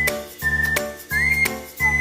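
Background music with a whistled melody: short whistle notes that slide up and hold, over bass notes and a regular clicking beat.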